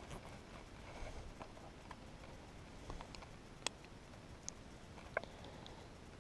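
Faint handling noises while a pike is unhooked: a few soft clicks and taps, with three sharper ticks in the second half.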